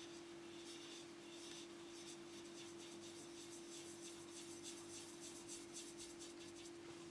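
Faint scratching and light ticking of a felt-tip marker drawing on a painted pencil pot, over a steady faint hum.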